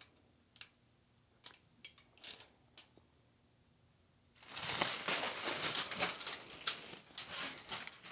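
Aluminium foil crinkling and scratching as a pen presses and traces lines on it: a few short scratches at first, then about three seconds of continuous crinkling and scratching from about four seconds in.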